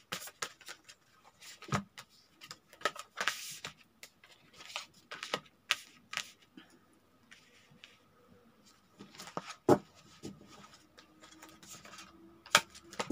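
A deck of stiff tarot cards being shuffled and dealt out by hand: irregular clicks and snaps of the cards, with a quieter stretch in the middle and a sharper snap a little before the end.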